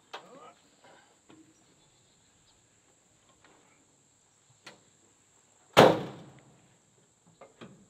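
Cab door of an old Mack crane truck slamming shut once with a loud metallic bang that rings briefly, about six seconds in. Before it come small knocks and scuffs of someone climbing up into the cab.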